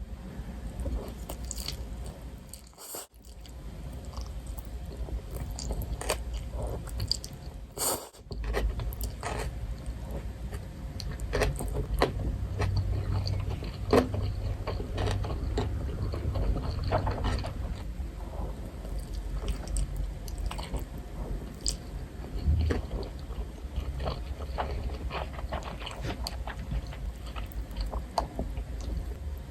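A person biting and chewing food close to the microphone, with crunchy bites of fried chicken and fried noodles and many small sharp mouth clicks. The sound drops out briefly about three seconds and eight seconds in.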